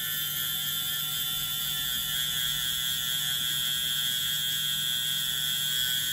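Tattoo machine buzzing steadily as it works the needle into the skin of a forearm, a constant electric hum with no change in pitch.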